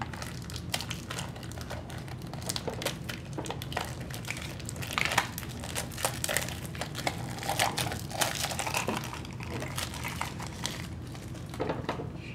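Crinkly plastic wrapper being pulled and crumpled off a toy gumball machine, a continuous irregular crackling with a few louder rustles about five seconds in and near the end.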